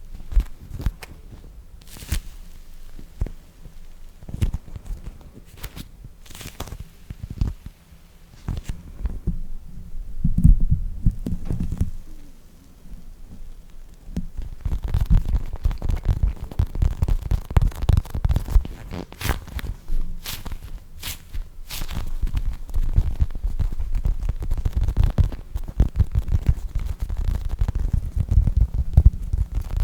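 Squishy toys squeezed and handled close to the microphone: dense, irregular crackling clicks over soft low thuds and rumbles, growing busier about halfway through.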